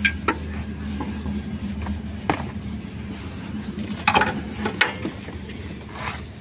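Scattered sharp metallic clicks and knocks of hand tools working on a car's steering parts, a cluster of them about two-thirds of the way through, over a steady low hum.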